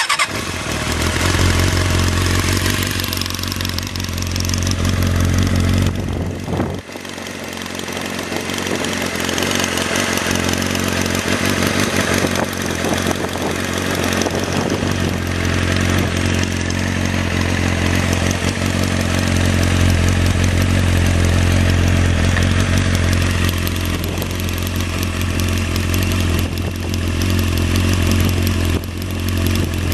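Kawasaki ZXR400's 400 cc inline-four engine starting hot on the first press of the starter and running at a steady idle, with a brief dip in level about seven seconds in.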